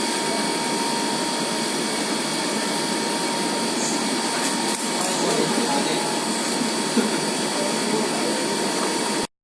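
Steady machine running noise, an even hiss with a thin steady whine, with a couple of faint knocks in the middle and an abrupt cut-off near the end.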